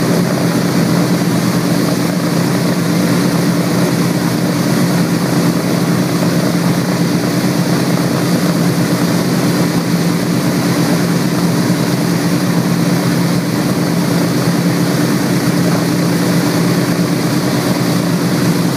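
A Boeing B-17G Flying Fortress's Wright R-1820 Cyclone nine-cylinder radial engines running steadily during a ground warm-up, propellers turning. It is a loud, even drone with a deep hum and no change in speed.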